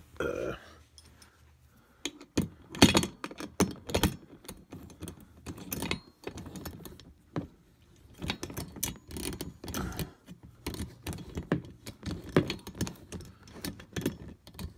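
Hand tools and bolt hardware clinking and knocking against a poly dump cart's plastic bed and steel frame as a bolt and locking nut are worked in: irregular sharp clicks, with a few louder knocks.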